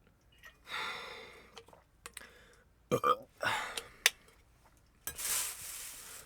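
A person's close breath and mouth noises: a breathy rush about a second in, a short throaty sound with sharp clicks around three seconds in, and a longer hissing breath near the end.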